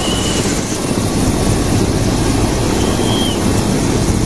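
Helicopter running on the ground with its main rotor turning: a steady, loud mix of turbine engine and rotor noise.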